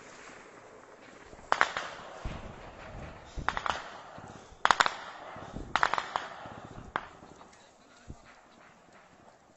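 A string of gunshots, single shots and quick pairs about a second apart, with the loudest pair about five seconds in and the shots thinning out towards the end.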